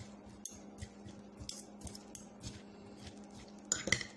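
Metal spoon and fork tossing a tuna and cucumber salad in a glass bowl: light clinks and scrapes against the glass every fraction of a second, with a brief cluster of louder clinks near the end. A steady low hum runs underneath.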